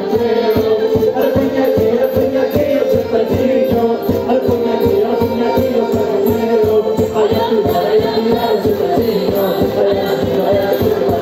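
Madeiran folk dance music, loud and continuous: held melody tones and some singing over percussion keeping a quick, even beat.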